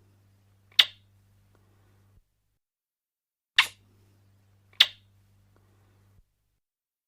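Kiss sound effect: short, sharp lip smacks in pairs about a second apart, three in all, one about a second in and two near the middle, with a faint low hum under each pair.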